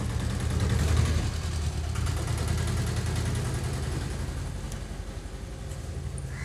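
Auto-rickshaw engine idling with a steady low hum, loudest about a second in, then gradually growing fainter.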